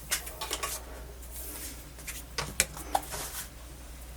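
Scattered light clicks and taps from handling a small portable MiniDisc player and its parts, a cluster near the start and another a little past the middle, over a steady low hum.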